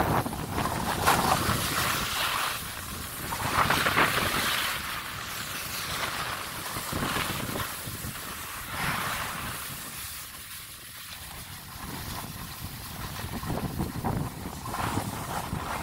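Skis scraping and hissing over packed groomed snow through a run of turns, the hiss swelling every two to three seconds, with wind buffeting the microphone.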